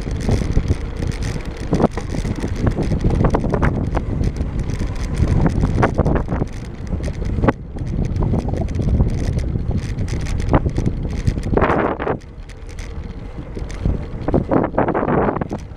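Wind rushing over the microphone of a bicycle-mounted camera while riding, with frequent rattling clicks and knocks from the bike rolling over brick paving.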